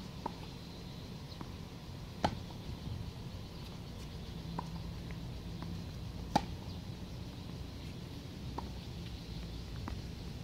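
Tennis ball struck by rackets in a rally: short sharp pops, the two loudest about two and six seconds in, with fainter knocks between them.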